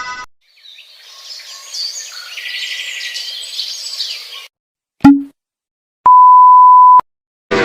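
A string of short meme sound effects: a few seconds of busy high chirping, then a short sharp hit with a low tone, then a one-second steady censor bleep.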